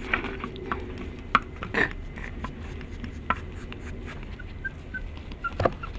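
Cavalier King Charles spaniel puppies scuffling around a hollow plastic piggy bank, with scattered light knocks and clicks as they bump and paw it, and a few faint short squeaks in the second half.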